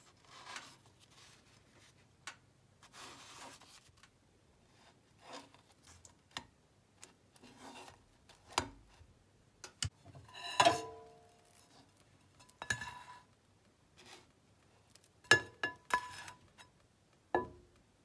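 Kitchen handling sounds as bread slices are laid in a non-stick frying pan and lifted onto a plate: soft rustles and scattered light taps, with several short ringing clinks of pan and dishware, the loudest about ten and a half seconds in.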